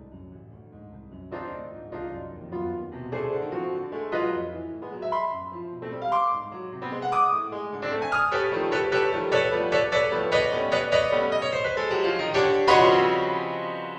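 Piano playing a classical-style piece: separate notes and chords, then from about eight seconds a fast, dense run of notes growing louder. Near the end a loud chord is struck and left ringing.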